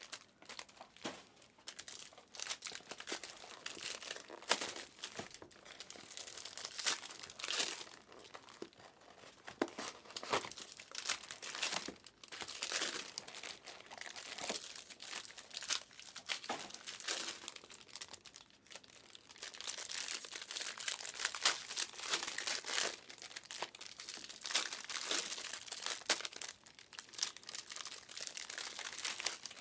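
Plastic trading-card pack wrappers being torn open and crinkled, an uneven run of rustling and crackling with sharp little tears throughout.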